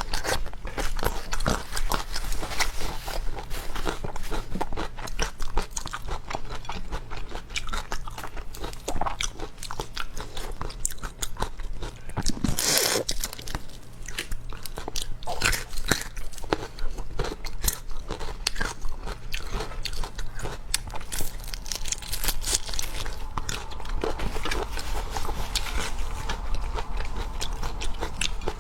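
Close-miked eating of seafood: steady chewing and crunching with many small clicks and cracks. There is one louder noisy burst a little under halfway through.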